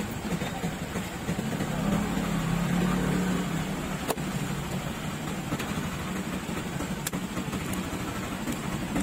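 A motor vehicle engine running steadily, louder about two to three seconds in, with two sharp knocks about three seconds apart from a large knife cutting fish on a wooden chopping block.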